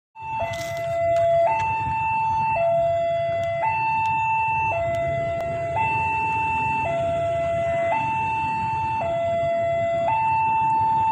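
Level-crossing warning alarm sounding a two-tone electronic signal, a higher and a lower tone taking turns about once a second, warning that a train is approaching. A low steady rumble runs underneath.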